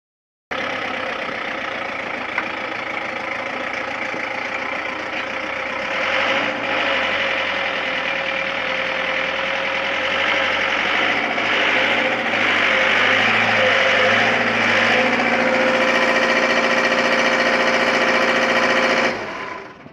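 Kato HD-250 mini excavator's diesel engine running steadily, growing louder about six seconds in and again about twelve seconds in as the boom and bucket are worked. It cuts off suddenly near the end.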